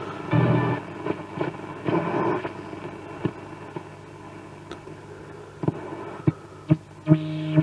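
Bush AC31 valve radio on the shortwave band with its tuning knob being turned. Brief snatches of stations and hiss slide past, broken by several sharp crackling clicks, and near the end a steady tone comes in.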